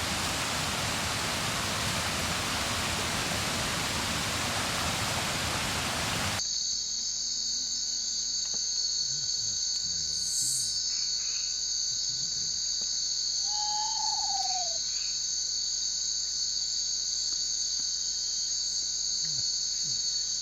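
A steady rushing hiss that cuts off abruptly about six seconds in, giving way to a tropical night chorus of crickets or katydids trilling steadily in high-pitched bands. About fourteen seconds in, a single falling whistled note sounds once.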